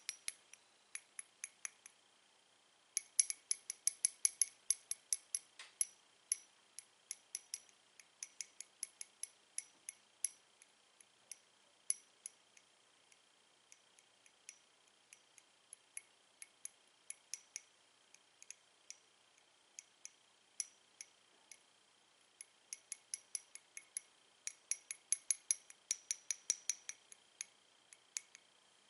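Two sticks of white chalk tapped and clicked against each other: a long string of sharp, light clicks with a bright ring, in quick runs about three seconds in and again near the end, sparser between.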